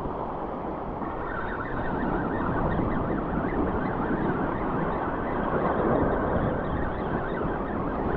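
Sea water washing and surging over shallow reef rocks, with wind on the microphone; the wash grows louder about two seconds in.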